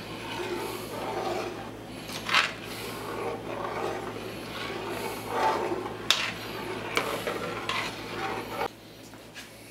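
A metal spoon scraping round the bottom of a pot as it stirs thick pumpkin soup, in repeated scraping strokes with a couple of sharp knocks of the spoon against the pot. The scraping stops about a second before the end.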